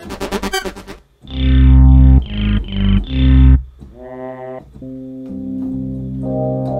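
Roland V-Synth synthesizer being played through a run of factory patches. It starts with a fast repeating sequenced pattern, then gives four loud low stabbed notes, then held chords on a soft piano patch near the end.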